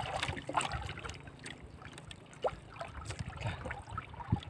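Sea water lapping and trickling against a small boat's hull, with a few light knocks and rubs while a fish is hauled in on a handline.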